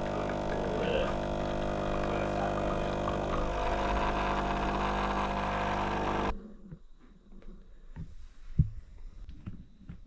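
Steady motor drone that cuts off abruptly about six seconds in. It is followed by quieter knocks and one sharp thump near the end.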